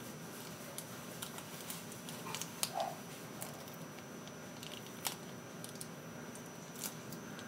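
Scattered light clicks and taps over a steady low room hum while liquid seasoning is dripped onto instant noodles in a bowl.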